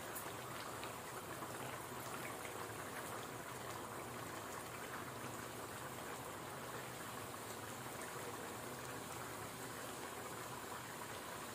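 Hot oil sizzling steadily with small crackles as a methi puri deep-fries in a kadhai.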